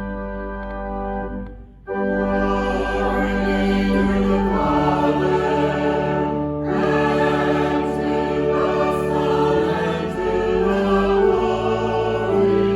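Church organ holding a chord, then, about two seconds in, a choir begins singing a hymn with organ accompaniment.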